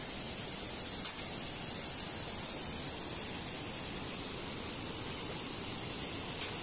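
Small forest cascades pouring into a rocky pool: a steady rush of falling water, with a faint click about a second in.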